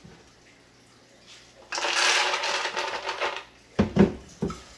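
Soaked tiger nuts poured from a mesh strainer into an empty plastic blender jar: a rattling rush of nuts lasting about two seconds. A few sharp knocks follow near the end as the strainer is handled against the jar.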